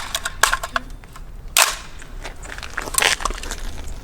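A few sharp metallic clacks and knocks from an AR-15 being handled and readied to fire, the loudest about a second and a half in.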